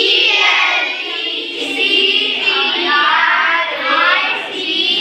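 A group of children reciting a spelling aloud in unison, in a sing-song chant.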